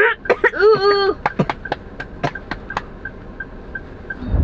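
A car's turn-signal indicator ticking steadily, about three ticks a second. In the first second a high-pitched, wavering vocal sound is heard, followed by a few sharp clicks, and a low rumble rises near the end.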